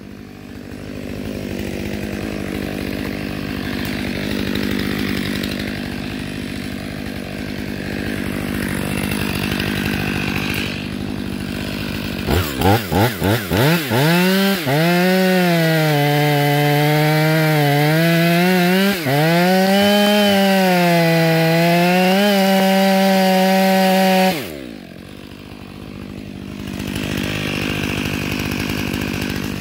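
Stihl MS 500i fuel-injected chainsaw idling, then revved in several quick blips and held at full throttle while cutting through a log, its pitch sagging and recovering under load. About 24 seconds in it drops back to idle.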